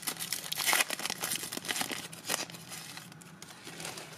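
Foil wrapper of a trading-card pack being torn open and crinkled by hand, a dense crackling that thins out about three seconds in.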